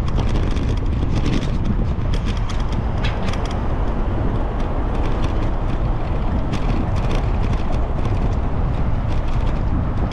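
Riding a bicycle, with a steady low rumble of wind and tyres and frequent short clicks and rattles from the bike.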